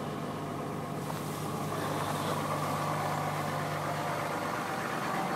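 A 2005 Dodge Ram 2500's 5.9-litre Cummins inline-six turbo-diesel idling steadily just after a cold start, heard from inside the cab, with the heater fan blowing on window defrost.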